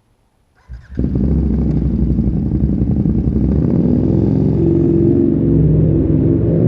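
KTM 1290 Super Duke's V-twin with an Austin Racing exhaust, baffle (dB killer) removed, starting up about a second in and then running loudly at a fast idle with small blips. The sound echoes in a road tunnel.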